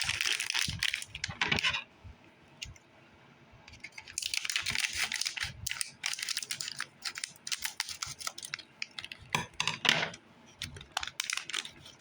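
Plastic packaging being opened by hand: dense crinkling and clicking, with a short quiet pause after about two seconds before the handling resumes.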